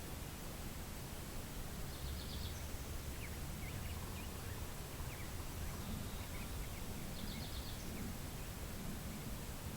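Wind rumbling on the microphone over a steady hiss, with small birds calling: a short rapid trill twice, about two seconds in and again about seven seconds in, and scattered faint chirps between.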